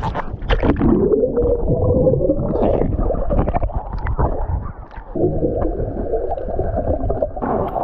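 Water splashing as an action camera goes under the sea surface, then the dull, muffled rush and gurgle of water heard from underwater, with a wavering hum. Near the end the sound brightens again as the camera comes up.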